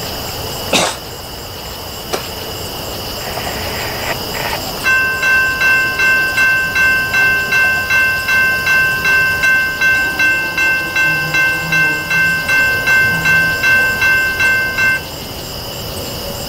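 Railroad grade-crossing warning bell ringing about twice a second, each strike a clear ringing tone that fades; it starts about five seconds in, rings for about ten seconds, then stops, warning of an approaching train. Before it, a sharp knock just under a second in.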